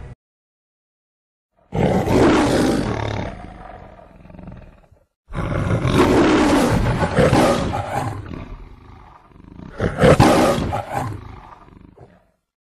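Lion roaring three times, the MGM studio logo's lion roar: the roars come about two, five and ten seconds in, the last the shortest.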